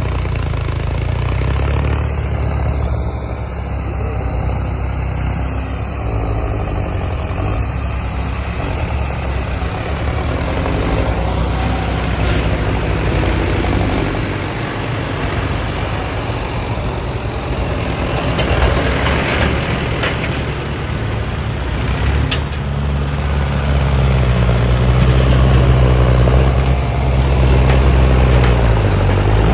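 Farm tractor's diesel engine running steadily, growing louder about three-quarters of the way through.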